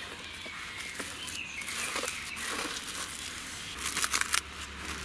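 Thin plastic cling film crinkling and crackling as hands press and tuck it around a ball of dough on a steel plate, with a burst of louder crackles about four seconds in.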